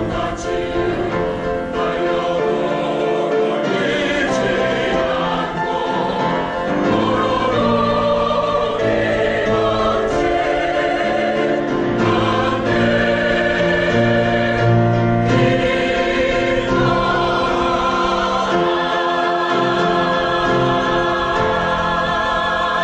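Church choir singing an anthem in full, sustained chords with accompaniment: the piece's closing bars.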